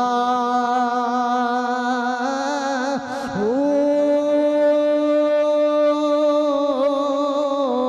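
A man singing a Punjabi devotional verse, drawing out one syllable as a long held note. About three seconds in the note slides up to a higher pitch, which he holds with a slight waver.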